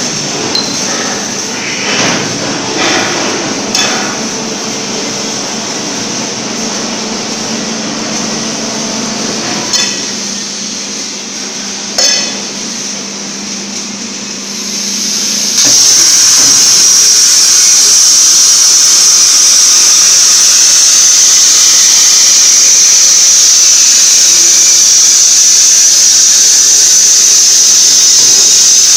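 Workshop hum with a few sharp knocks and clinks, then about halfway through a CNC plasma bevel-cutting torch strikes its arc and cuts metal plate with a loud, steady hiss that runs on unbroken.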